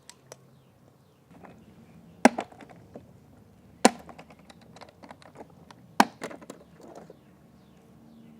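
Sharp plastic clicks and knocks from a cordless robotic pool vacuum being handled and opened: three loud knocks about two seconds apart among many lighter clicks.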